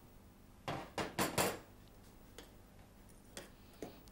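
Metal spoon clinking against stainless-steel saucepans: four sharp clinks close together about a second in, then a few faint taps.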